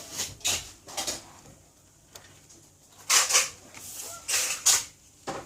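A series of short clinks and taps of small hard objects, such as tools and phone parts being handled and set down on a work surface. The loudest clicks come in a quick cluster a little past the middle.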